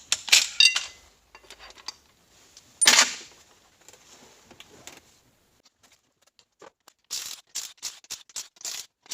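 Metal parts and tools being handled, clinking and clattering: a few clicks at the start, a louder clatter about three seconds in, and a quick run of clicks near the end.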